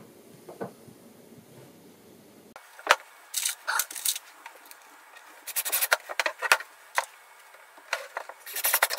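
A wooden workpiece, screws and a cordless drill being handled on a workbench: after a quiet start, a run of irregular sharp clicks and knocks begins about three seconds in.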